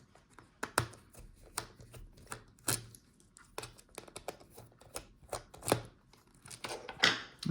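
Irregular small clicks and taps of a screwdriver and small laptop parts being handled while a speaker is unscrewed and the speaker pair is lifted out of the laptop.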